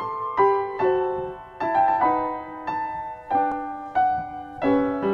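Background music on a keyboard instrument sounding like piano: chords struck about every half second, each ringing and fading before the next.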